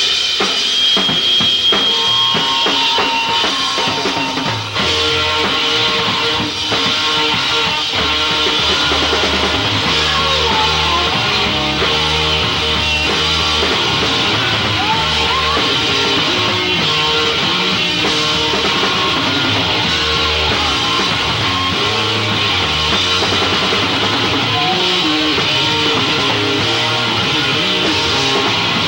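A rock band playing live with electric guitar, bass guitar and drum kit with cymbals in a loud, dense jam, heard on a rough 1969 concert bootleg recording.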